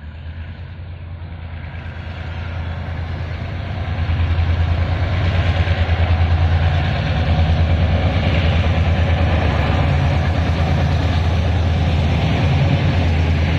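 Taiwan Railway R154 diesel-electric locomotive hauling a long freight train past at slow speed: a deep, throbbing diesel engine drone that grows louder as it approaches and holds steady from about four seconds in as it passes close.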